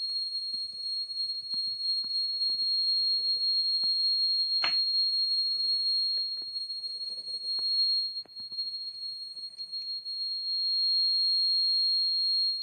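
Electronic buzzer of a homemade earthquake alarm model sounding one steady high-pitched tone: the alarm set off by shaking. Light taps and clicks of handling underneath, with a sharper click about five seconds in.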